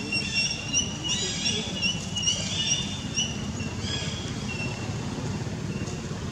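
A quick series of short, high-pitched chirping calls crowds the first four seconds, then thins out and stops. A steady low rumble runs underneath throughout.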